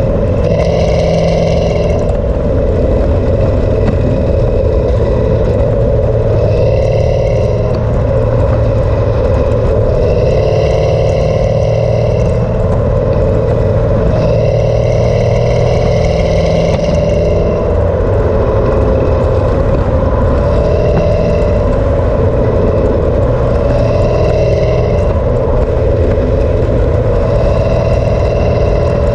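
Cammed Camaro SS V8 running through an MBRP exhaust while driving, loud and steady, its pitch wavering only slightly rather than climbing through a full-throttle pull.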